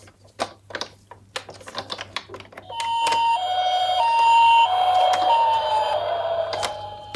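A run of sharp clicks and clatter, then a toy ambulance's electronic hi-lo siren, switching between two pitches a little under twice a second. Near the end a tone slides down in pitch.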